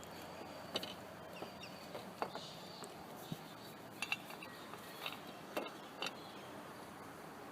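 Irregular light metallic clinks and taps of hand tools and small metal parts during engine work, about ten sharp ticks spread unevenly over a few seconds.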